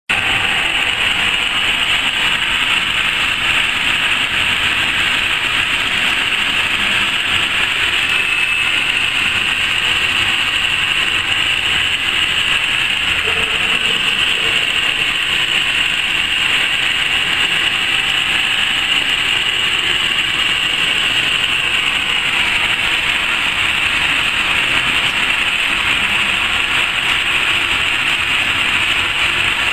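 Laser fabric-cutting machine running, a steady whir and hiss from its fans and motors.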